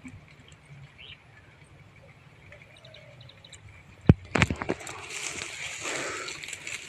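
Quiet pond-side ambience with faint bird chirps, then about four seconds in a couple of sharp knocks followed by loud rustling for about two seconds, as someone shifts about on dry grass close to the microphone.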